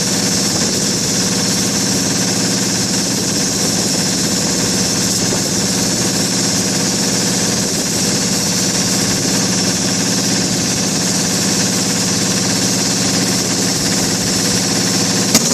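Kohler KD425-2 two-cylinder diesel engine on an air compressor running steadily at a loud, even beat after a tune-up that cured its hard starting. A single sharp click near the end.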